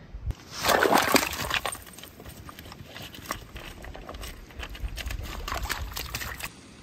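Pebbles clinking and knocking under a spaniel's paws as it forages along a shingle shore at the water's edge, with a louder rush about a second in and wind rumbling on the microphone.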